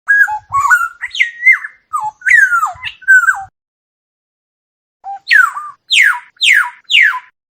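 Oriole singing: several fluting whistled phrases that slide up and down, then after a short pause four falling slurred calls about half a second apart.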